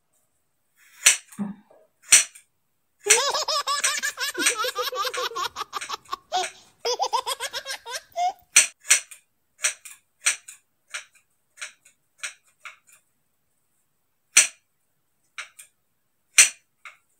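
Scissors snipping through a thick ponytail of hair: a run of sharp, crisp snips, more and more closely spaced from about halfway through. A burst of laughter in the first half.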